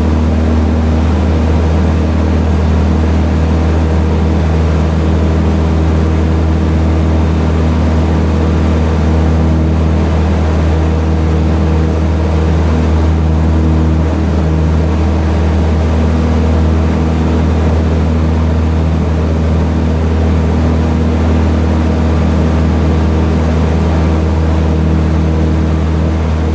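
Ultralight aircraft's engine and propeller droning steadily at cruise, a constant low hum with wind rushing past the open cockpit.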